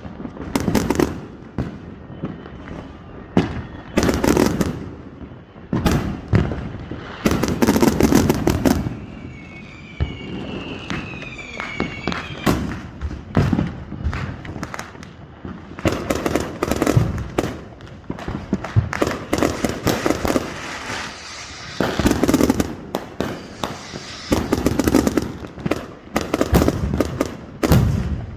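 Fireworks going off in repeated volleys of sharp bangs and crackles. A cluster of whistling fireworks rises and falls in pitch about ten to twelve seconds in.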